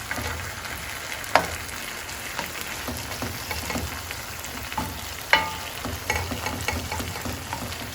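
Fish cooking in a pan on the stove, a steady sizzle, with a few sharp metal clinks; the loudest come about a second and a half in and about five seconds in.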